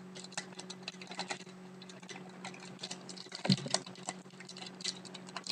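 Trading cards and pack wrappers handled by hand: irregular small clicks and rustles as cards are flipped and shuffled, with a slightly louder knock about three and a half seconds in, over a steady low hum.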